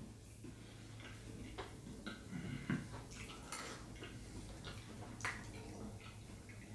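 Faint eating sounds: scattered small clicks and wet ticks from chewing and from a fork working meat off neck bones on a plate.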